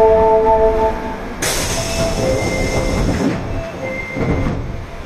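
Osaka Metro Tanimachi Line subway car with Hitachi GTO inverter drive running through the tunnel, heard from inside: loud rumbling running noise with short high-pitched squeals about two and four seconds in. A held chime tone ends about a second in, and the running noise grows louder just after.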